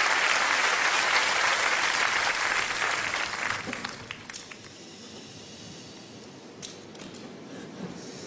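Audience applause that fades out about four seconds in, leaving a hushed hall with a few scattered clicks.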